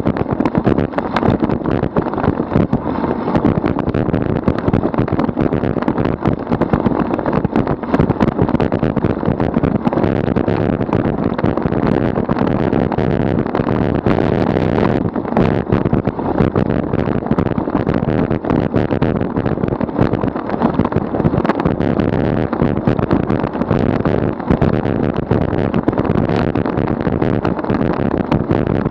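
Wind rushing over the microphone of a bicycle-mounted camera, with rumble and frequent small knocks from the tyres on coarse asphalt, as the bike rolls along at about 37 km/h.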